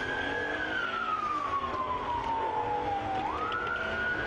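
Police siren wailing: the tone holds high, slides slowly down over about three seconds, then sweeps quickly back up near the end. Road and engine noise of the moving car lies underneath.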